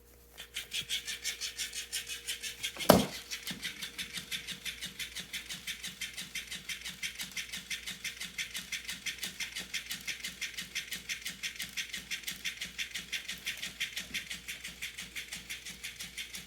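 Battery-powered moving cat toy running, its mechanism making a fast even clicking of about five to six clicks a second, with one sharp knock about three seconds in.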